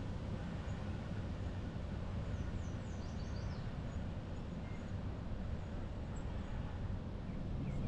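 Steady low rumble of a bicycle rolling along a paved path, picked up by a GoPro. Between about two and three and a half seconds in, a bird gives a quick run of high, falling chirps.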